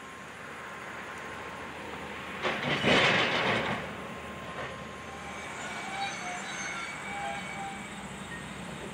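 Excavator demolishing a building: a steady engine hum, a loud crash of debris about two and a half seconds in, then scattered short metallic squeals.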